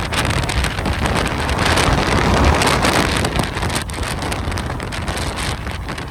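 Strong, gusty Santa Ana wind buffeting the microphone with a heavy low rumble, swelling about two seconds in and easing a little after four seconds.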